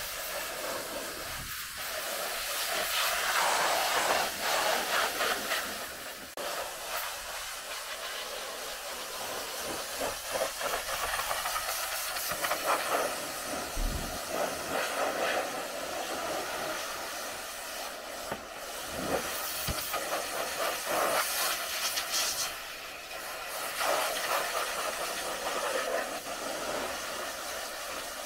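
Pressure-washer jet hissing as it sprays water onto a car's bodywork, swelling and fading again and again as the spray sweeps across the panels.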